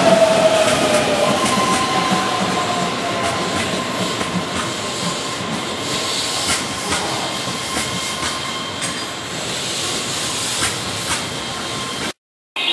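Keihan 13000-series electric commuter train rolling away on curved track: steady wheel-and-rail noise with repeated clicks over the rail joints, a whine falling in pitch at the start, and a steady tone from about a second in. The sound cuts off suddenly near the end.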